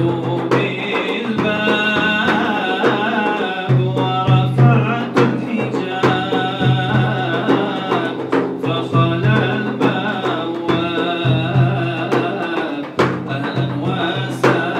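Solo male voice singing an Arabic devotional song (inshad) through a handheld microphone, over a regular beat of drums.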